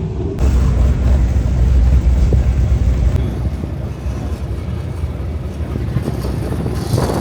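Low rumble of car engines running, loudest in the first three seconds.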